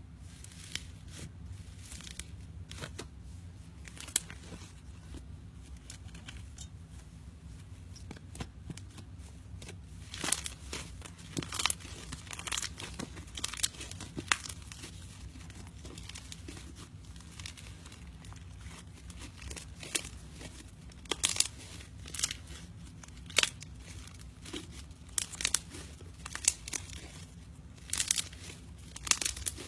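Fluffy pink slime squeezed, poked and stretched by hand, giving irregular sharp pops and crackles. The pops come in clusters, thickest about ten seconds in and again through the last third.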